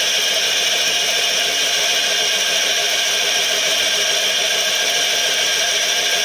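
Charcoal briquette extruder driven by a 5 hp electric motor, running steadily under load as it presses out briquettes: a constant, even mechanical noise.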